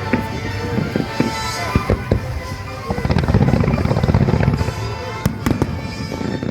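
Fireworks bursting in a string of sharp bangs, thickening into a dense volley with deep rumbling about three seconds in, with music playing beneath.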